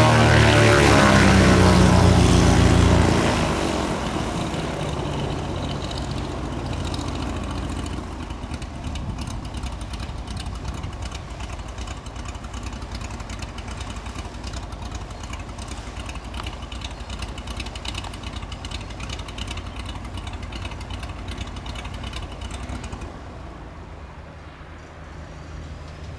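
Reims Cessna F337G Skymaster's push-pull twin piston engines and propellers on the ground, loud and close at first with a sweeping, phasing tone as the aircraft passes, then dropping about three seconds in to a steady lower drone that drops again near the end.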